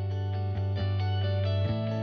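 Background music: a held low bass note under regularly struck notes, the chord changing near the end.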